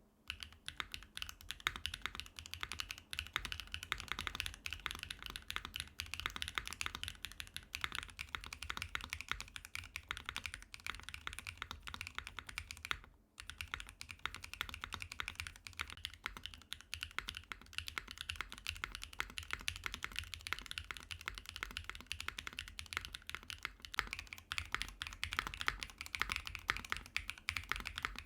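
Fast, continuous typing on a NEO65 mechanical keyboard with HMX FJ400 switches on an aluminium plate and no foam. The keystrokes come many to the second, with a brief break about halfway through.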